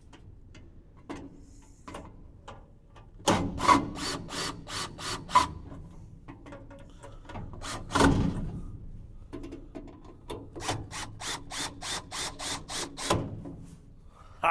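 Cordless drill-driver driving a screw into the cart's metal frame. It makes two runs of rapid clicking, about four clicks a second, a few seconds in and again near the end, with a heavier knock about eight seconds in.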